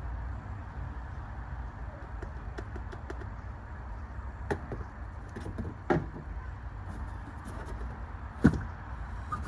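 A few sharp knocks and clunks over a steady low rumble, the loudest near the end, from handling the fill hose and oil bottle while filling the power transfer unit.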